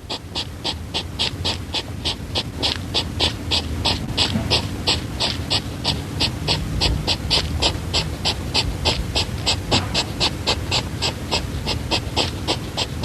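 Hedgehog snuffling: quick, rhythmic sniffing puffs, about three or four a second, kept up at an even pace.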